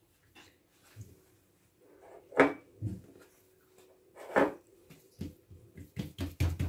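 Hands working a thin, oiled sheet of msemen dough on a stone countertop: lifting, stretching and pressing it flat, with two louder sudden sounds about two seconds apart and a quick run of pats and taps near the end.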